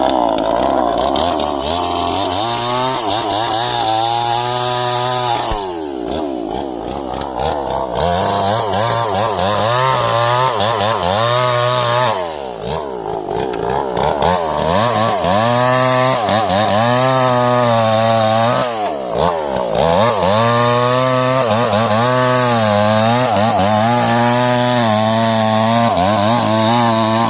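Two-stroke chainsaw cutting sengon wood, its engine revving high under the cut and falling back to a lower speed three times before revving up again.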